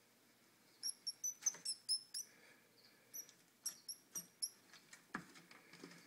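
Mouse squeaking in distress in the jaws of a peach-throated monitor lizard: a dozen or so short, high squeaks in two quick clusters through the first half, with a few faint knocks and rustles.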